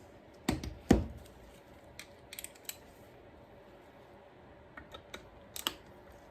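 Hand tools clicking and knocking against a small bolt and the metal engine case as a torque wrench is worked on it: two louder knocks about half a second and a second in, then scattered light clicks.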